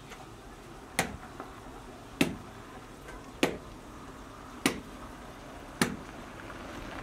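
Slow footsteps on dry, stony ground: five sharp crunching steps, evenly spaced a little over a second apart.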